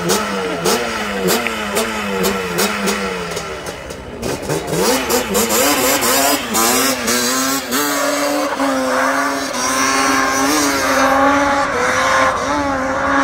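Quad bike engine revving in quick up-and-down blips with sharp clicks for the first few seconds. It then climbs and is held at higher revs with a wavering pitch as the quad is ridden across the arena.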